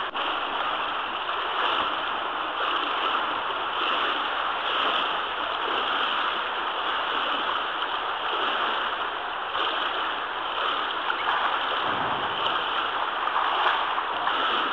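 Kayak paddle blades dipping into pool water in steady strokes, about one a second, over a constant rush of water noise.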